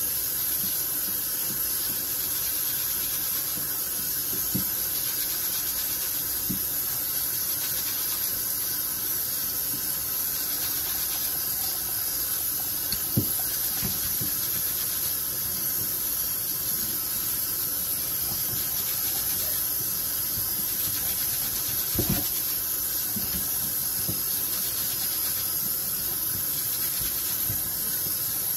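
A steady hiss, strongest in the highest pitches, with a few scattered knocks of a knife on a wooden cutting board, the sharpest about halfway through.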